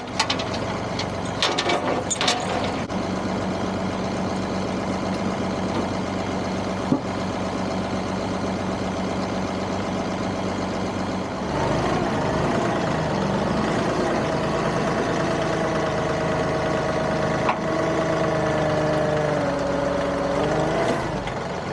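John Deere 2038R compact tractor's three-cylinder diesel running steadily, with a few sharp knocks in the first couple of seconds. About halfway through the engine speeds up and runs louder for about ten seconds, then settles back near the end.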